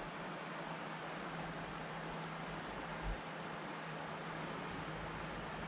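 Insects trilling: one unbroken high note over a steady, even hiss, with a faint soft bump about three seconds in.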